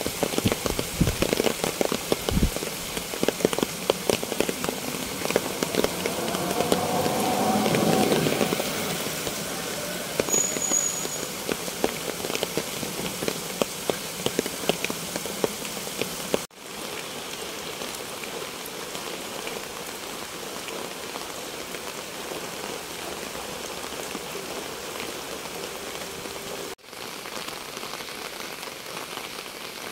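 Steady monsoon rain, with many close drops ticking sharply over the hiss of the downpour. It is heaviest in the first half. The sound cuts out for an instant twice, about halfway through and again near the end.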